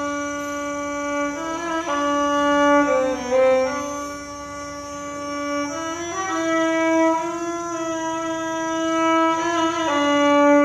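Violin playing a slow melody of long bowed notes, each held for a second or more before moving to the next.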